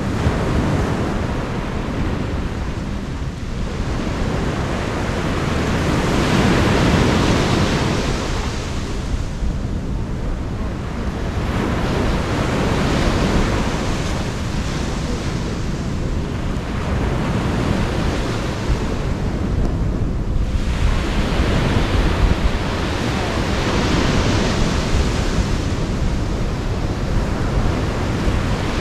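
Ocean surf breaking and washing up a sandy beach, the rush swelling and fading every several seconds, with wind buffeting the microphone.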